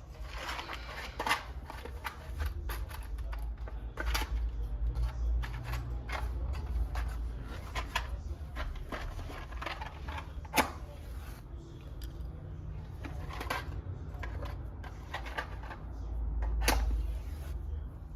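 Irregular clicks, light knocks and rustling of things being handled, over a low rumble.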